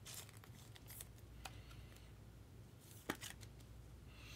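Faint handling of trading cards and foil pack wrappers: light ticks and crinkling, with one sharp click about three seconds in.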